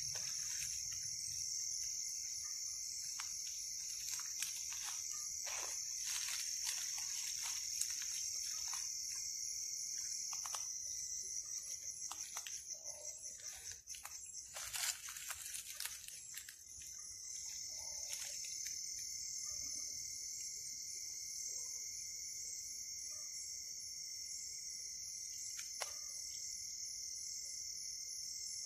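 Night insect chorus: a steady high-pitched trill that turns to a rapid pulsing for a few seconds about halfway through. A second, lower steady trill joins after that. Scattered faint clicks and rustles run through it.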